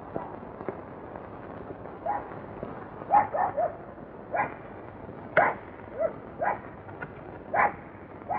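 A dog barking repeatedly in short barks, some in quick runs of two or three, starting about two seconds in, over a steady hiss.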